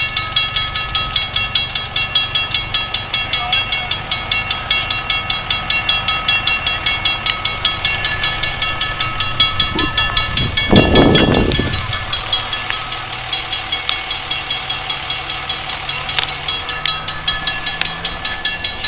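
Railroad grade-crossing warning bell ringing in a steady, even run of metallic strikes as the crossing gates come down, the signal that a train is approaching. About ten seconds in a brief loud rushing noise covers the bell for a second or so.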